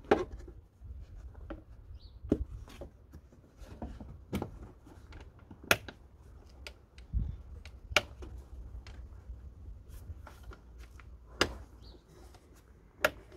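Irregular sharp plastic clicks and knocks from a new air filter being fitted into the Suzuki Carry's airbox and the housing being clipped shut.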